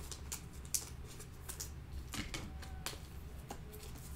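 Trading cards being handled and flipped through by hand: a string of light, irregular clicks and snaps.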